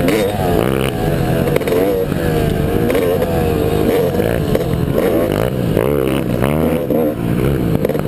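Motocross bike engines revving, several at once, their pitch repeatedly rising and falling as the riders open and close the throttle.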